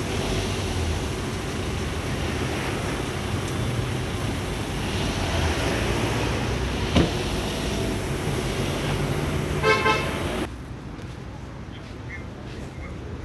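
Street traffic noise with two quick toots of a car horn about ten seconds in; then the sound drops abruptly to a much quieter background.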